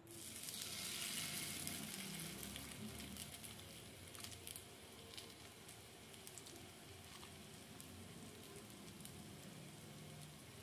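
Potato and carrot fritter sizzling in shallow hot oil in a frying pan: a sudden burst of sizzle as it goes in, strongest for the first couple of seconds, then settling to a steady, softer sizzle with scattered pops.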